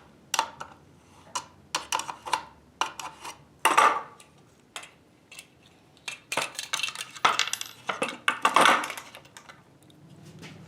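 Tools and small metal parts being handled: a string of irregular clinks, clatters and knocks. A steady low hum starts near the end.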